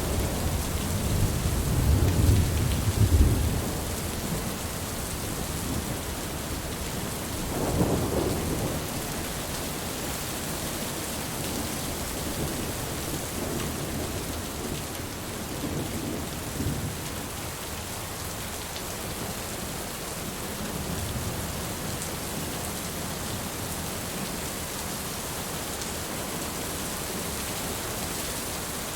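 Steady heavy rain with rolling thunder: a loud low rumble in the first few seconds, another near eight seconds in, then fainter distant rumbles under the rain.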